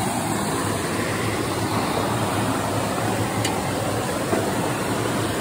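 Shallow creek water running steadily, with one faint tick about three and a half seconds in.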